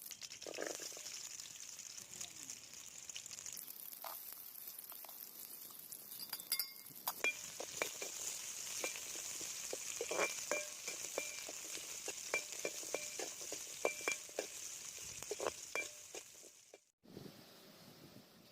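Food sizzling in hot fat in a pan while it is stirred, with many short clinks of the utensil against the pan. The sizzle grows louder a few seconds in and cuts off abruptly near the end.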